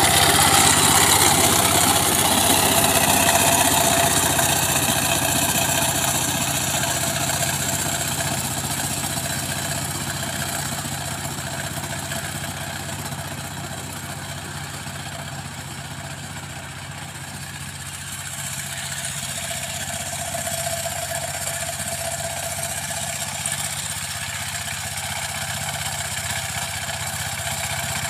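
Two-wheel power tiller's single-cylinder diesel engine running steadily under load while its rotary tines work dry soil. It fades as the machine moves away and grows louder again as it comes back.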